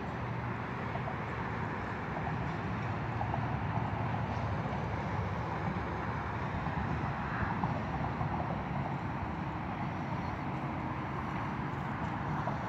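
Distant traffic on a highway bridge, a steady low rumble and hiss with no distinct events.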